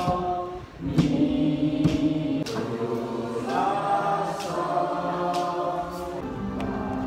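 A class of students singing together in chorus, the voices holding long notes and stepping from one pitch to the next.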